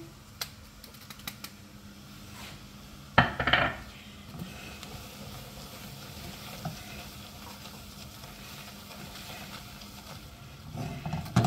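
Butter, garlic and flour sizzling in a saucepan as a silicone whisk stirs them into a roux, the first stage of a béchamel sauce. A brief louder clatter comes about three seconds in.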